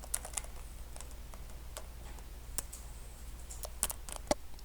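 Scattered light clicks and taps of small plastic Littlest Pet Shop figures being handled and moved about, more of them near the end, over a low steady hum.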